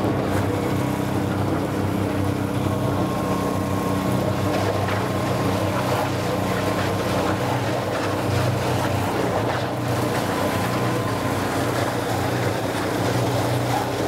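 Small gasoline engine of an old cement mixer running steadily, turning the drum as refractory is mixed with water.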